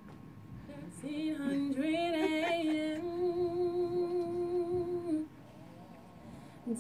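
A woman humming a short jingle melody without words. A few quick rising notes lead into one long held note with a slight vibrato, which stops about five seconds in.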